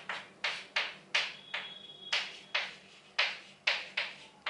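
Chalk writing on a chalkboard: a quick series of short scratchy strokes, about two to three a second.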